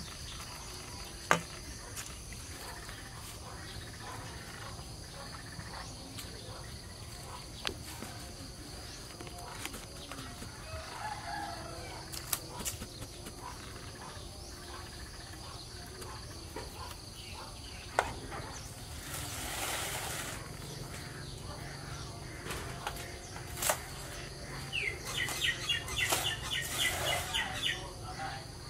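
Outdoor rural ambience: a steady high insect drone with scattered bird calls and a few sharp knocks, a brief rustle about two-thirds of the way through, and a bird's rapid chattering call near the end.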